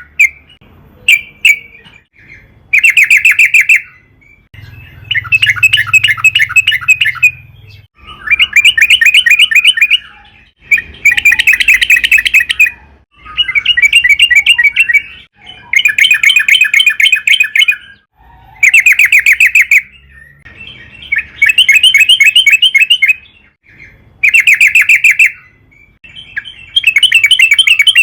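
Yellow-vented bulbul (trucukan) singing: a string of fast, chattering phrases of rapid repeated notes, each one to two seconds long, coming roughly every two to three seconds with short pauses between.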